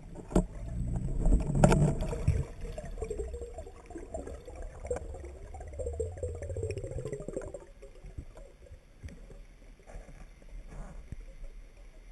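Water noise picked up by the camera during a spearfishing dive: two sharp knocks near the start, then several seconds of crackling, gurgling bubbles over a low rumble that fades out, leaving faint scattered ticks.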